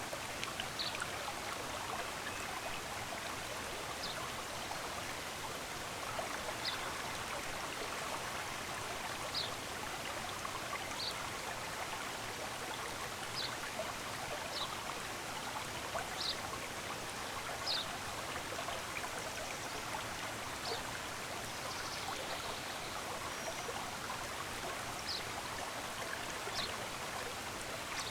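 Running water of a stream, a steady rushing, with a bird repeating a short high chirp every second or two.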